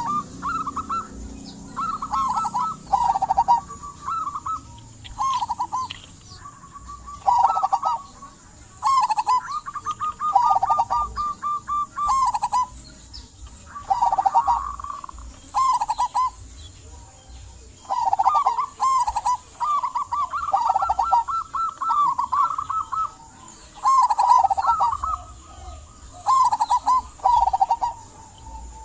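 Zebra dove (perkutut) cooing its song over and over: phrases of quick, rippling, purring notes, repeated every second or two with short pauses between.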